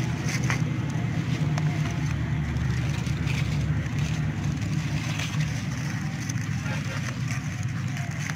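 Crumpled aluminium foil crinkling and tearing in short crackles as a foil packet of kiln-roasted fish is peeled open by hand, over a steady low rumble.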